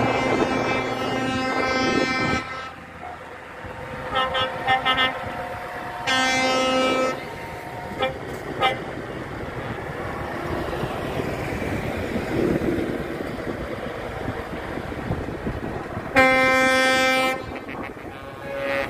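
Semi-truck air horns sounding over the running of passing heavy trucks. A long blast opens, then a run of short toots about four seconds in and another blast about six seconds in. Two short toots follow around eight seconds, and the loudest blast comes about sixteen seconds in.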